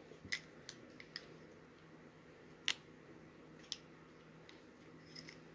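Hands handling small objects, making a few faint, scattered clicks and taps, with one sharper click about two and a half seconds in.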